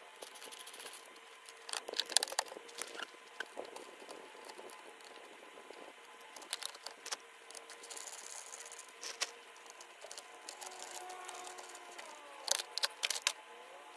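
Scattered metal clicks and rattles of hand tools working on the carburetor of a Yamaha Warrior 350 ATV, its engine off.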